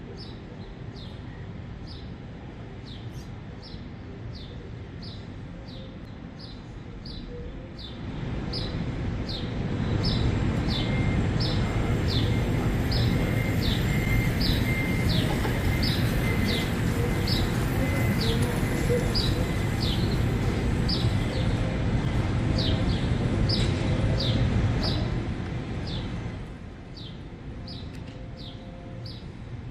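City waterfront ambience with a short, high, falling chirp repeating evenly about one and a half times a second. About a third of the way in, a louder rumble swells up with a faint high whine in it, holds for some fifteen seconds, then fades away.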